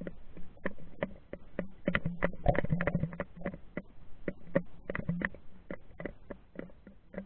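Irregular clicks and knocks, several a second, with a faint low hum, heard underwater through an action camera's waterproof housing as it moves over the lake bottom; the knocks bunch up into a louder muffled thumping about two to three seconds in.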